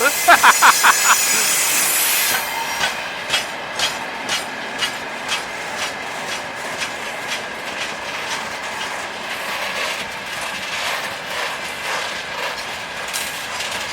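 Freight train wagons rolling past, their wheels knocking over the rail joints in an uneven run of clacks over a steady rushing noise.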